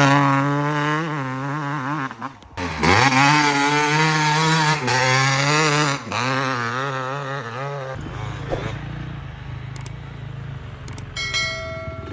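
Yamaha YZ250 two-stroke engine with a Pro Circuit R304 silencer on an FMF pipe, revved up and down in repeated throttle blips, with a short drop about two seconds in. About eight seconds in the engine note falls away, leaving a low rumbling noise and a brief high tone near the end.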